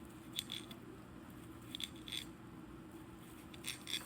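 Knife slicing a cucumber thinly on a cutting board: short clicking chops in three quick clusters of about three strokes each.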